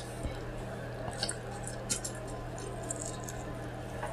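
A person chewing pizza with the mouth open, giving short wet smacks and clicks at irregular moments over a steady low hum.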